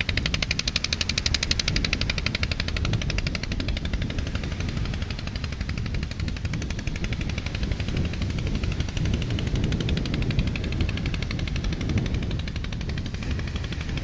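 Natural gas flare stack burning: a continuous, rapid crackling rattle over a steady low rumble.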